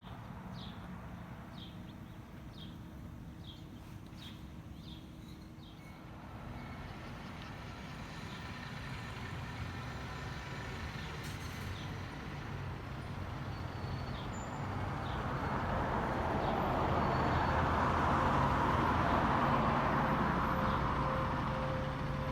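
Road traffic: a vehicle's engine and tyre noise building up, peaking about three-quarters of the way through and easing off as it passes. Faint short high chirps repeat about twice a second during the first few seconds.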